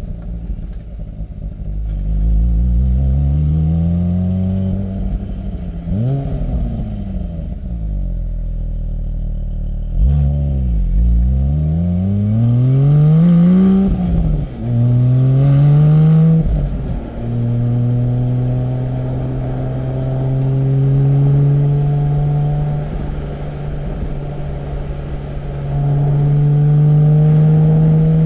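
Porsche 718 Spyder's naturally aspirated 4.0-litre flat-six through its sports exhaust, revs climbing and dropping through several gear changes with a quick rev blip about six seconds in. It then settles into a steady cruise in the second half, pulling a little harder near the end.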